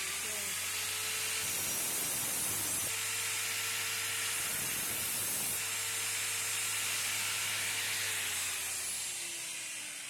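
Large Makita angle grinder, mounted in a home-made stand, running at speed with a steady whine and hiss; twice a knife blade is ground against the cutting disc, giving rougher, brighter hissing. Near the end it is switched off and winds down, its whine falling in pitch.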